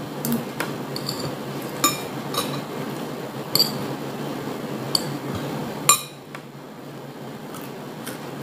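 Metal spoon clinking and scraping against a ceramic plate of rice, about seven separate clinks over the first six seconds, the one near six seconds the loudest. A steady low hum lies underneath.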